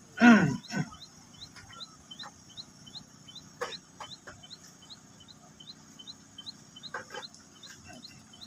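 Outdoor animal sounds: a loud falling animal call just after the start, then a short high chirp repeated about three times a second over a steady high insect-like hiss, with a few light clicks.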